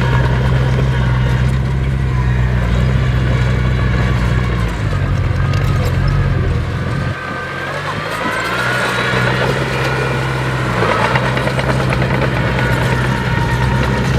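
Heavy diesel engine of a bulldozer or dump truck running with a steady low drone, under a wavering higher whine. The drone drops away briefly about halfway through, then picks back up.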